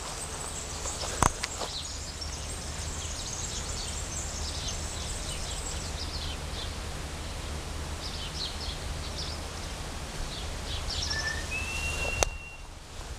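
Open-field outdoor ambience: scattered short high bird chirps over a steady low rumble and hiss, with a couple of sharp knocks near the start and a brief thin whistle-like tone near the end.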